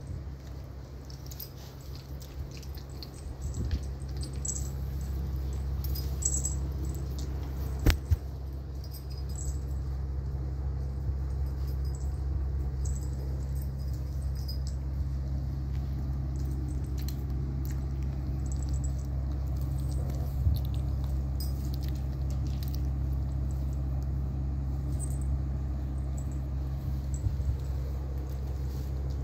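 Puppies moving about and mouthing each other, making small scuffles and light clicks, with the jingle of collar charms, over a steady low hum. A sharp click comes about eight seconds in.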